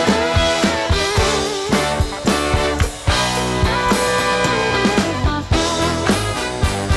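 Background music: upbeat rock-style instrumental with guitar and a steady drum beat.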